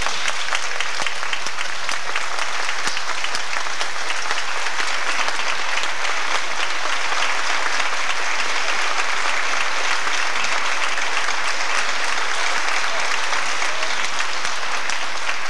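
Audience applauding, a dense, steady clapping that keeps an even level.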